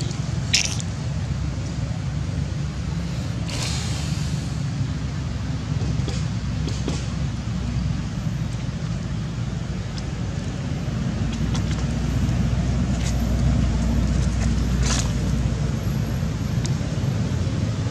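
Steady low rumble of outdoor background noise, a little louder in the second half, with a few short clicks and rustles.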